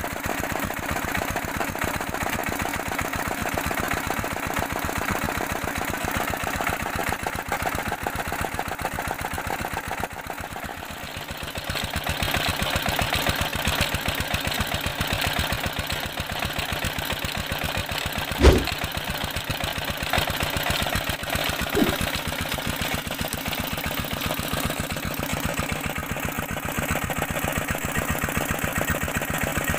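Single-cylinder diesel engine running steadily with a fast, even putt, belt-driving a tube-well water pump. A sharp knock cuts through partway in, with a fainter one a few seconds later.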